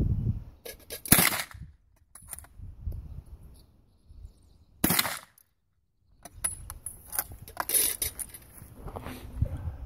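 Two shots from a Krag-Jorgensen bolt-action rifle about four seconds apart, the first the louder, with lighter metallic clicks and rattling between and after them.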